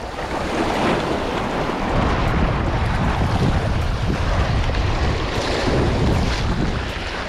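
Wind buffeting the microphone with a steady low rumble, over the wash of waves against jetty rocks.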